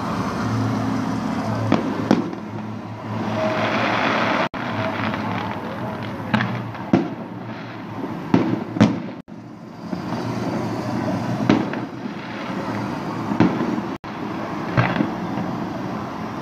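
Festive fireworks display: sharp bangs of bursting shells at an uneven pace, about one every second or two, over a steady background rumble. The audio briefly cuts out three times.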